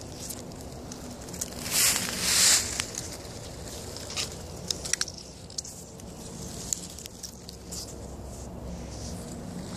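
Dry twigs and brush rustling and crackling as someone pushes into a thicket, with two louder swishes of branches about two seconds in and scattered sharp snaps of small sticks afterwards.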